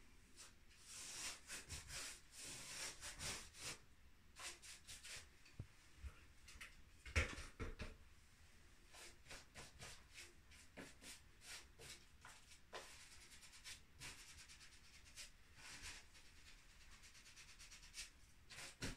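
Faint swish of a paintbrush in short strokes against a painted wall, cutting in a line of paint along the ceiling edge, with one sharper knock about seven seconds in.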